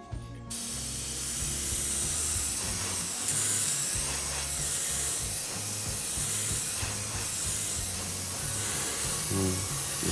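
Airbrush spraying metallic paint: a steady hiss of compressed air that starts suddenly about half a second in and carries on evenly, swelling slightly about three seconds in.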